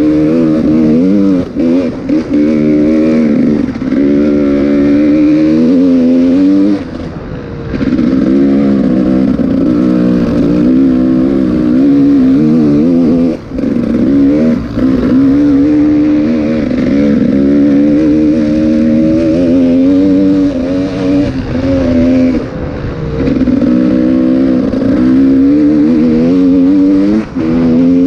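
A motor vehicle's engine running hard and loud, its pitch rising and falling with the throttle, broken by a few short drops in loudness.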